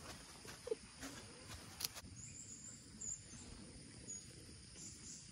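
Faint high-pitched chirping of insects, coming and going, with two short sharp clicks in the first two seconds.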